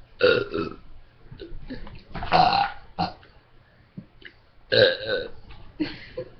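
A string of loud human belches: three long ones about two seconds apart, with shorter ones between and one more near the end.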